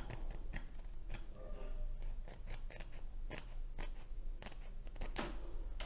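Scissors snipping through the edge of a diamond-painting canvas, a run of short, irregularly spaced cuts.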